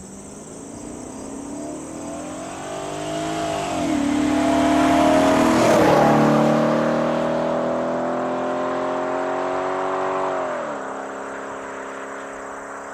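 Audi A6 4.2 V8 with its rear mufflers deleted, accelerating hard past on the road. The exhaust note climbs, drops at a shift about four seconds in, is loudest as the car goes by around six seconds in, with the pitch falling, then drops again near the end as it pulls away and fades.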